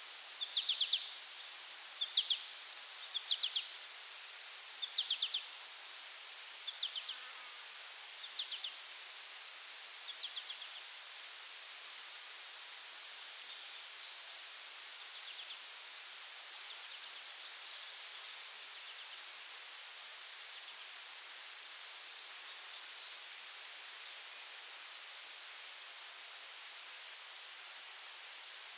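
Insects calling: one keeps a steady high-pitched trill while another pulses in an even rhythm just below it. Short chirps come about once a second for the first ten seconds, then fade away.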